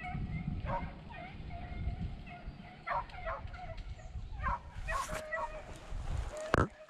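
Beagles baying on a rabbit's trail, a string of drawn-out bays from the running pack, with a low rumble underneath and one sharp knock near the end.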